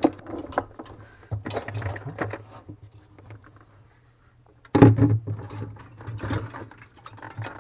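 Clicks, rattles and clatter of plastic freezer parts and wiring connectors being handled and pushed into place, with a loud knock about five seconds in. A low steady hum runs underneath.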